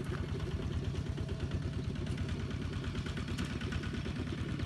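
Kubota ZT-140 single-cylinder diesel on a two-wheel walking tractor, running steadily with a rapid low chugging beat while it pulls a trailer loaded with sacks of rice.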